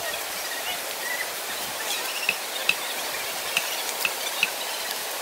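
Machete cutting bamboo, giving a few sharp clicks and knocks about half a second to a second apart, over a steady outdoor hiss.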